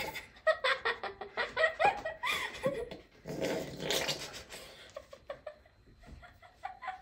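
Laughter mixed with gurgling, squelching noises from a carton of cream being squeezed open and poured, the loudest in the first half.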